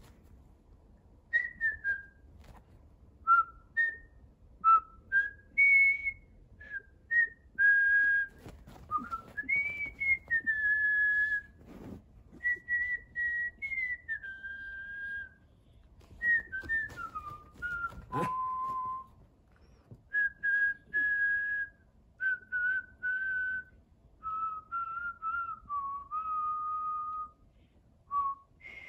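A person whistling by mouth to call a dog: a string of short notes and longer held notes that slide up and down in pitch, in phrases with short pauses between. One sharp click partway through.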